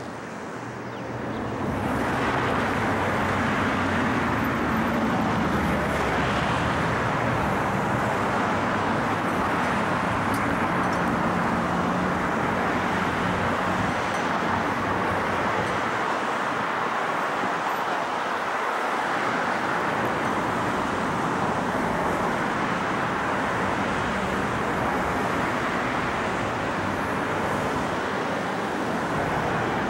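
Steady road traffic noise, an even wash with no distinct vehicles standing out, fading in over the first two seconds and then holding level.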